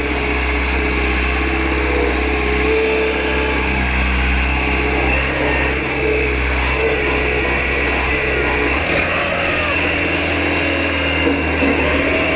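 Kubota M6060 tractor's four-cylinder diesel engine running steadily while the tractor is driven. About nine seconds in the deep part of the engine note changes, and near the end the pitch rises as the engine speeds up.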